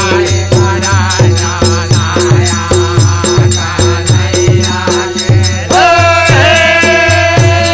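Indian folk Holi rasiya music: a harmonium melody over a steady dholak beat of about two strokes a second, with jingling percussion. A long held melody note comes in near the end.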